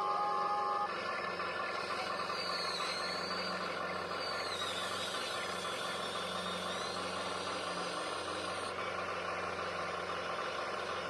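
Electric motors and gearboxes of a radio-controlled construction model whirring under load, starting about a second in, with a whine that slides up and down in pitch as the motors work.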